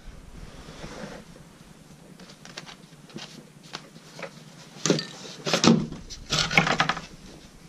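The board of a sprung figure-4 deadfall trap being lifted off and moved on a concrete floor: a few light knocks, then louder clusters of clattering and scraping about two-thirds of the way through.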